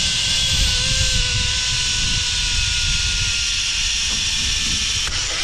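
Zipline trolley pulleys rolling along the steel cable during a ride, making a steady whirring hiss with a thin whine in it. Wind rumbles on the microphone underneath.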